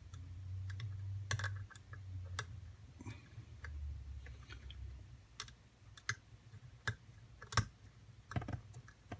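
A lock pick working the pin stacks of an ABUS padlock: scattered small sharp clicks and ticks at an irregular pace, with one louder click about three quarters of the way through, over a low handling rumble.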